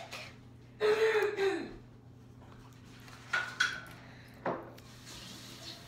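A brief wordless voice sound about a second in, then faint clicks and rustles of clear tape and scissors being handled, with one sharper click a little after the four-second mark.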